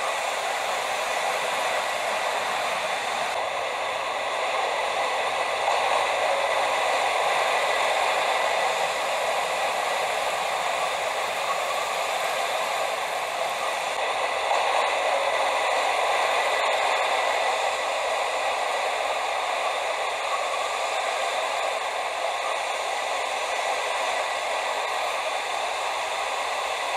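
Model train of a JR Hokkaido KiHa 283 series running on a layout: the steady whir of its motor and wheels on the track, swelling and easing as it passes.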